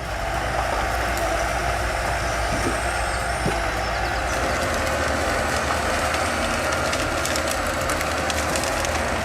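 Heavy machinery running with a steady engine drone, with scattered clicks and rattles over it.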